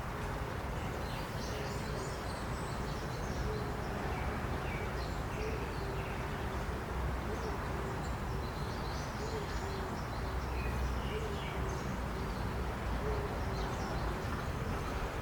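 Outdoor nature ambience: small birds chirping over a steady rush of wind, with a low hooting bird call repeating about once a second.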